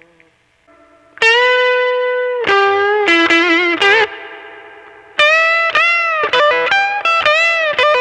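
Electric guitar with a Strat single-coil pickup fitted with an Alnico bar magnet laid flat, playing a single-note lead line: a long held note from about a second in, then quicker phrases with bends and vibrato. Just before it, the last note of the previous take dies away to near silence.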